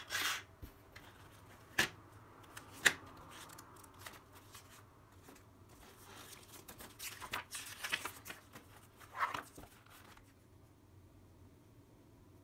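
Paper of a spiral sketchbook being handled and rustled, with two sharp clicks in the first few seconds and a longer run of rustling and small clicks in the middle, then it goes quiet for the last couple of seconds.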